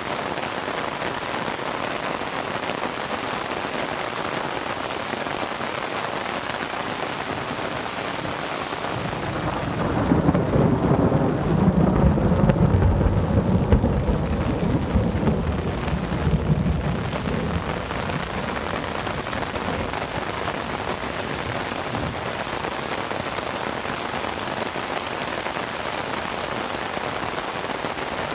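Heavy rain falling steadily. About nine seconds in, a low rumble of thunder swells, rolls for several seconds and fades away, with the rain going on underneath.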